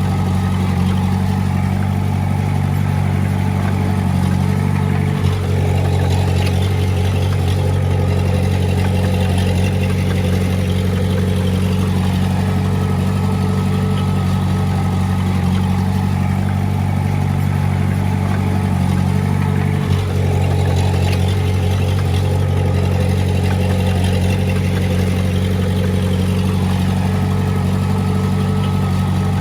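Heavy-equipment diesel engine running steadily at a constant speed, with two brief breaks in the sound about 5 and 20 seconds in.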